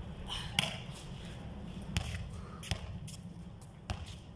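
A basketball bouncing on a concrete court: four sharp, unevenly spaced bounces.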